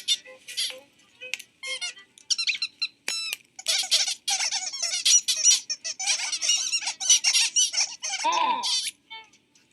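Cartoon small birds chattering and squabbling in rapid, high-pitched squeaky calls over light music. About eight seconds in, a lower call slides down in pitch.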